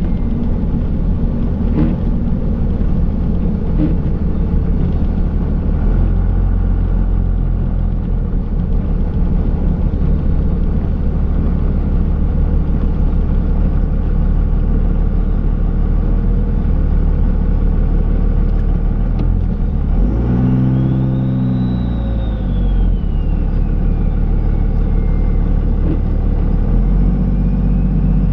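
Dodge Ram's Cummins turbo-diesel engine running steadily under plowing work. About twenty seconds in it revs up briefly, and a whine rises and falls before settling back.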